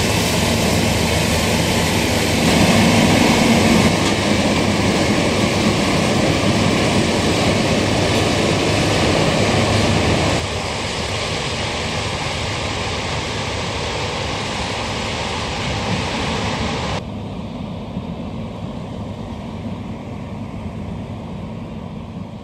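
Heavy harvesting machinery running steadily with a deep diesel drone and dense mechanical noise. It drops abruptly in loudness about ten seconds in and again about seventeen seconds in, and grows quieter toward the end.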